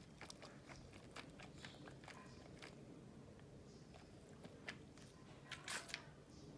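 Dog chewing ice, a run of scattered sharp crunches with a louder burst of crunching near the end.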